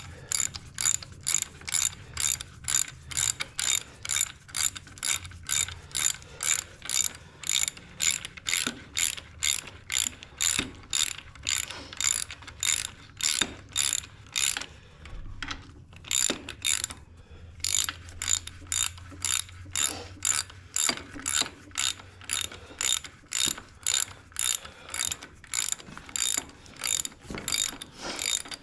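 Hand ratchet wrench clicking in a steady rhythm of about two strokes a second as long bolts, likely the head bolts, are run down into a Ford 8N engine block. There is a short break about halfway through.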